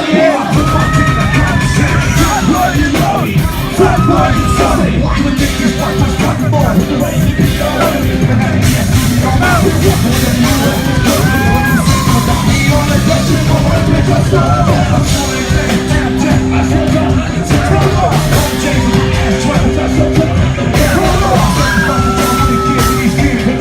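Loud live rap-rock concert music with a heavy low end and sustained notes, with yelled vocals over it.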